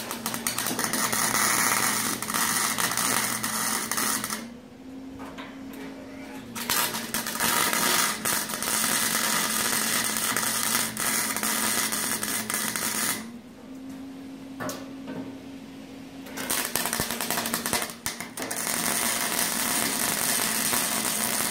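Electric arc torch cutting through a steel bathtub wall: a loud, crackling, buzzing hiss that stops twice for two to three seconds, about four and thirteen seconds in, over a steady machine hum that carries on through the breaks.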